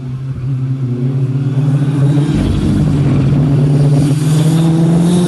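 Rally car engine under hard acceleration as the car approaches, getting louder, with a brief break in the note about two seconds in, like a gear change, and the pitch climbing after it.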